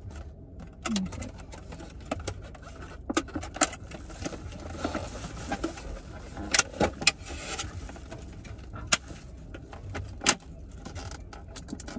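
Clear plastic clamshell takeout containers being handled and opened: scattered sharp clicks and crinkles, over a steady low hum of the car interior.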